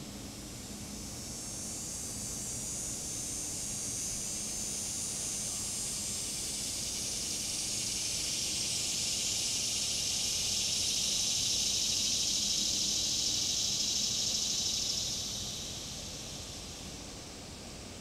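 Annual (dog-day) cicada singing a high, hissing buzz that swells over several seconds, holds, then fades away near the end.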